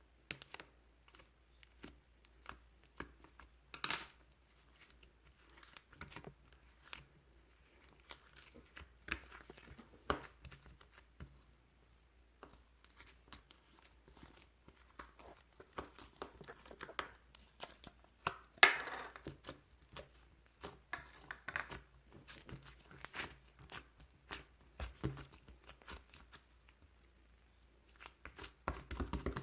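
Scattered light clicks and taps from objects being handled, with a few short rustling, tearing-like sounds, the loudest about four seconds in and again about two-thirds of the way through.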